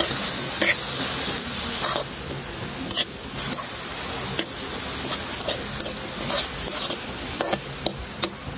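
Diced fresh pineapple and sugar sizzling in a nonstick pan, cooking down into sweetened pineapple. A metal spoon stirs and scrapes it, clicking against the pan at irregular moments.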